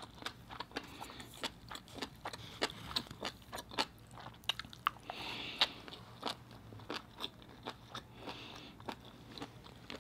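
Close-miked chewing of abalone with rice and fish-roe sauce: a quiet, continual string of small sharp clicks and crunches from the mouth.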